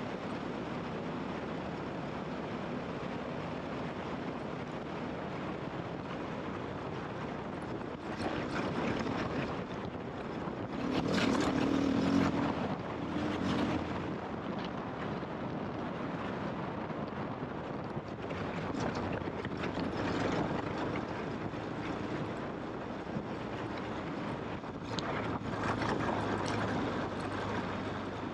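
KTM off-road motorcycle engine running under way, the throttle opening up in louder stretches several times, most strongly about eleven to fourteen seconds in.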